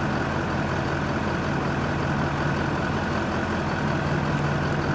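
Steady low engine hum, like a vehicle idling, with no change in pitch.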